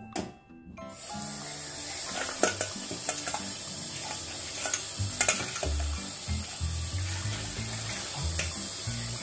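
Tap water running onto boiled dried chillies in a metal mesh strainer and splashing into a stainless steel bowl in the sink, starting about a second in, with a few light clinks of metal.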